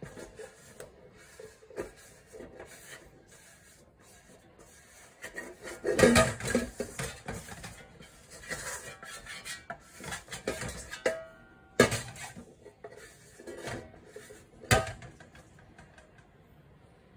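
A plastic bowl scraper scraping and rubbing around the inside of a stainless steel mixing bowl, gathering up leftover dough, in irregular strokes. A few sharp knocks of the scraper against the metal bowl stand out, the loudest about six and twelve seconds in.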